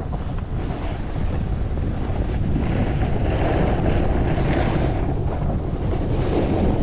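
Wind rushing over the camera microphone while snowboarding downhill, as a steady low buffeting. Over it, the hiss of the snowboard sliding and scraping on groomed snow swells a few times as the board turns.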